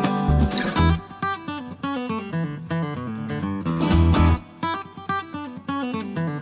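Background music led by acoustic guitar, playing a melody of stepping notes.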